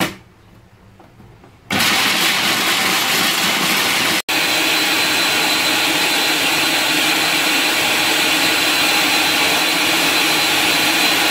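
Food processor motor running at full speed, its blade grinding roasted hazelnuts into a paste. It starts up a little under two seconds in and runs steadily, with a momentary cut about four seconds in.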